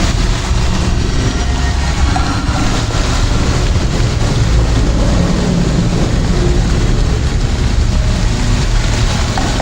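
A steady, loud rumbling noise, heaviest in the low end, with no breaks or distinct strikes.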